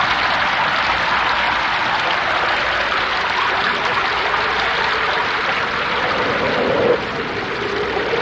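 Wind-driven rainstorm: a steady rush of heavy rain. It swells briefly just before seven seconds in and is a little quieter after.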